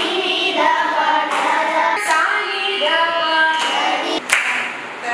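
Group of children singing a song together in unison, with a few sharp hand claps, the loudest about four seconds in.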